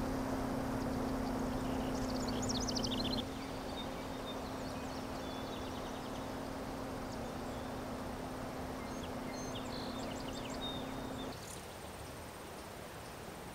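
Outdoor ambience: birds chirping in short high trills, once about two seconds in and again near ten seconds, over a steady hiss and a low hum. The hum weakens about three seconds in and stops about eleven seconds in.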